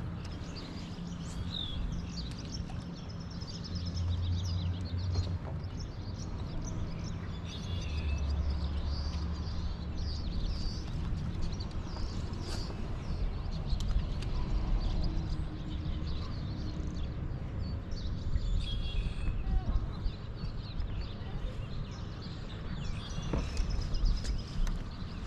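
Small birds chirping and singing over a steady low rumble, with a low hum that comes and goes twice early on. Near the end comes a quick run of sharp clicks.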